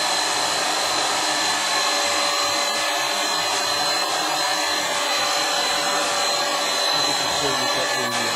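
Electric paint spray gun running steadily while spraying a coat of paint onto a cabinet: a continuous hiss with a faint steady whine.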